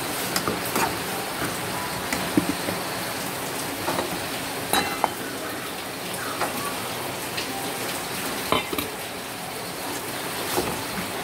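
Metal bowl and ladle clinking against a metal cooking pot, several short knocks and one brief ringing clink, as chopped vegetables are tipped into squid simmering in liquid. A steady hiss runs underneath.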